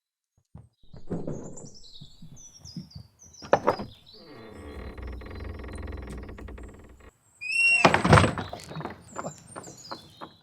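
A shack door being worked open: knocks and scraping, then a long, even creak for about three seconds, then a loud bang near the end. Birds chirp in the background.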